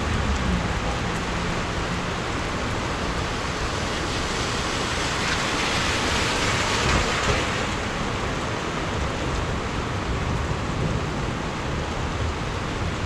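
Rain falling steadily, an even hiss of water, swelling briefly about six seconds in.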